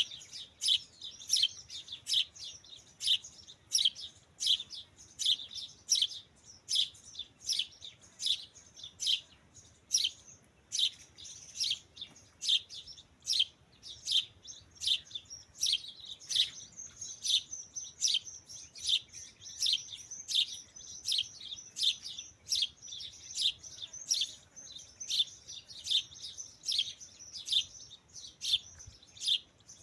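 Birds chirping: a steady run of short, sharp high calls, about two a second, over fainter continuous twittering.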